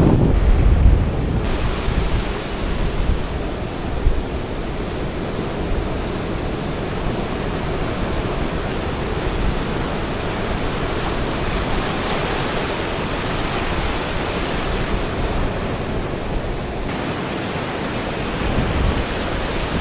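Sea surf washing steadily onto a beach, with wind buffeting the microphone, heaviest in the first second or so.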